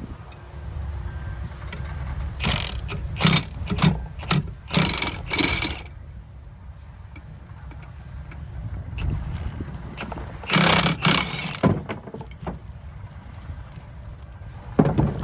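Bursts of clattering and rustling from parts being handled, over a steady low rumble.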